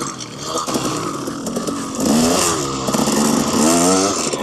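KTM 300 XC-W two-stroke dirt bike engine revving up and falling back as it is ridden, with two sharp rises in pitch, about two seconds in and again near the end.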